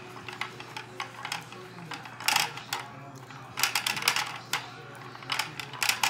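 A dog's nose pushing and shifting the plastic parts of a Kyjen treat puzzle: irregular plastic clicks and rattles, busiest about two seconds in, around four seconds and near the end.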